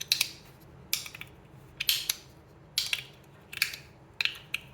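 Three-layer EDC fidget slider being slid back and forth, its layers snapping into their stops on ball detents with sharp clicks, about one a second, six in all.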